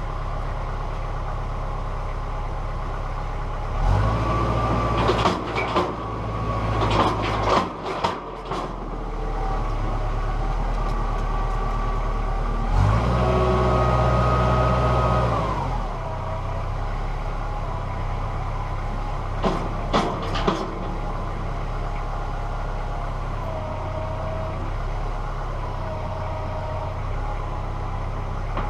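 Tractor engine running steadily and revving up twice as the front loader's hydraulics lift a homemade hay grapple, with a pump whine while revved. Several sharp metal clanks come from the loader and grapple, a cluster early on and another about two-thirds of the way through.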